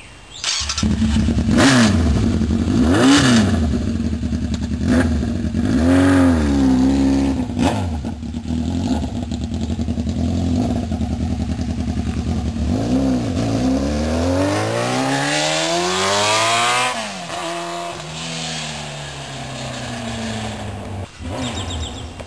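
1992 Yamaha FZR600R inline-four running with its exhaust taken off, so it barks straight out of the open headers. It is revved in several sharp blips, then pulls away with a long climb in pitch that breaks off and fades as the bike rides out of earshot.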